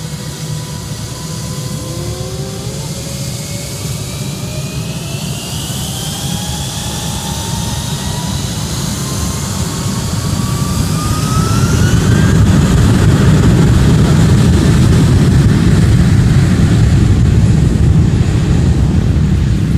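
Airbus A319's twin jet engines spooling up to takeoff thrust: several whines rise together in pitch over about ten seconds, then give way to a loud, steady roar as the airliner rolls away on its takeoff run.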